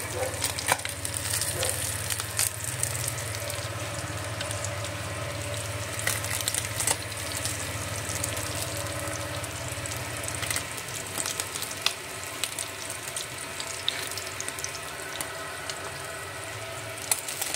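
Small whole fish sizzling and crackling as they fry in a nonstick pan, with scattered clicks of metal tongs turning them and lifting them out. A low hum underneath drops away about ten seconds in.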